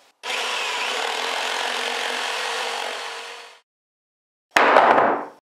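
Intro sound effect of a tool cutting or scraping along wood: a steady rasp lasting about three and a half seconds that fades out, followed after a short silence by a brief sudden sound that drops in pitch.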